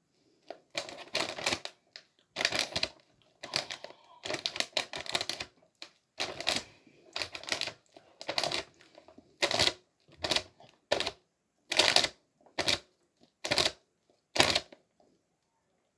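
Takis rolled tortilla chips being chewed with loud, crackling crunches close to the microphone: longer runs of crunching at first, then short crunches about once a second.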